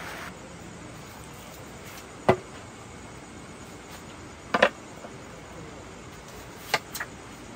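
Irregular sharp knocks: a single one about two seconds in, a quick double knock near the middle, and a few more near the end, over a faint steady hiss.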